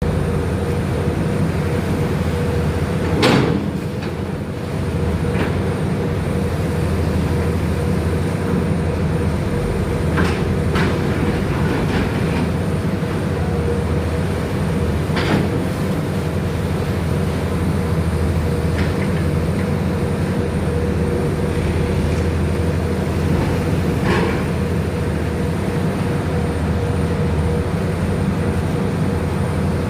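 Diesel engine of an amphibious PC 210 excavator running steadily under a heavy drone. A few short sharp sounds cut through it, the loudest about three seconds in.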